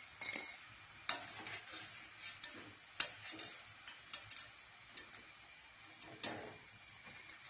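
Wire-mesh skimmer scraping and tapping against a metal karahi as pakoras are lifted out of hot oil, with a few sharp metal taps, the sharpest about a second in and at three seconds. The oil keeps up a faint frying sizzle underneath.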